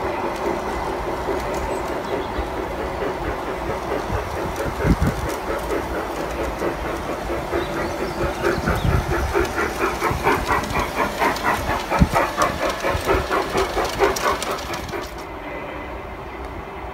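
G-scale model trains running on garden track: a steady hum, and from about eight seconds in a rhythmic beat of about three a second as a small steam locomotive runs close by, with a few dull knocks. The sound drops in level near the end.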